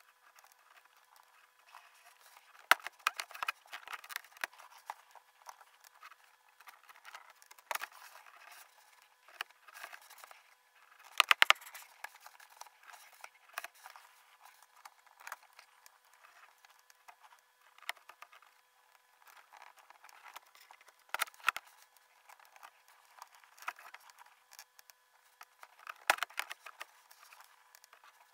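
Laparoscopic needle holder and grasper working inside a training box, played at five times speed: irregular metal clicks and scrapes as the jaws grip and release needle and suture, with louder clusters about 3, 11, 21 and 26 seconds in.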